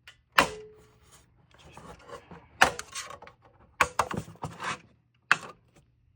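Sharp clicks and knocks of hard plastic as the air shroud inside an original Xbox 360 is pried loose with a pick and handled. The first, about half a second in, has a brief ring; several more clicks and clatters follow over the next few seconds.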